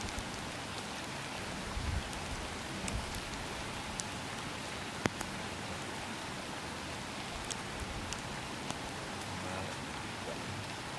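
A steady, even hiss of falling water, with scattered light ticks. The loudest is a single sharp click about five seconds in.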